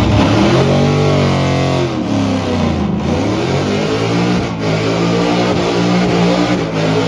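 Ford Mustang's engine revving hard as it does a burnout. The revs climb and drop twice, then hold high as the rear tyres spin and smoke.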